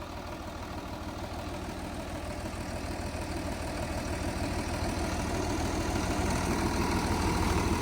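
Farm tractor engine running steadily, growing gradually louder.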